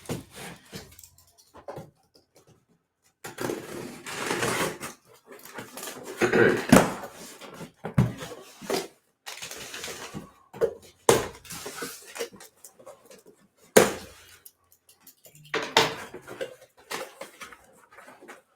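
Cardboard shipping box being opened and handled: rustling and scraping stretches broken by sharp knocks, the loudest about 7 and 14 seconds in.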